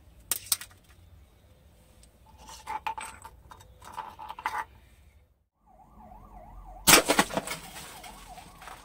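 Shards of a broken green glass bottle clinking and ringing briefly as they are handled and set down on a tile floor. After a short break, a siren wails up and down steadily, and a loud cluster of sharp cracks comes about seven seconds in.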